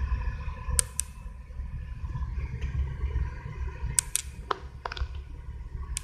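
Low, steady rumble of a car idling, heard from inside the cabin, with a few sharp clicks about a second in and several more around four to five seconds in.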